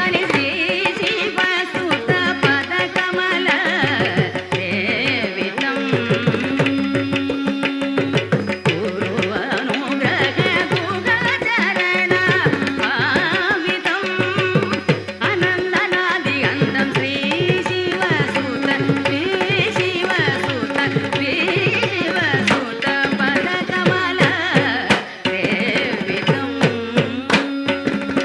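Malayalam film song in a Carnatic classical style: a melody over a steady tabla rhythm, playing throughout.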